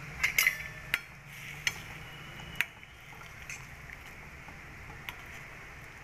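A stainless steel ladle clinks against a steel kadhai while stirring a thin buttermilk gravy. There are several sharp clinks in the first three seconds, then a few fainter ones, over a low steady hum.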